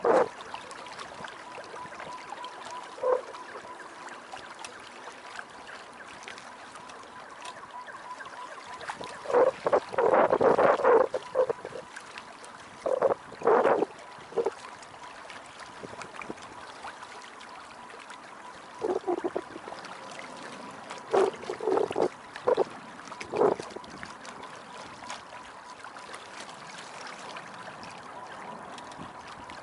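Water gurgling and splashing against the hull of a small sailboat under way, in irregular loud bursts over a steady hiss.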